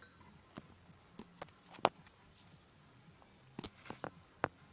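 A few light clicks and knocks from metal scooter parts being handled, the loudest about two seconds in and a short cluster near the end.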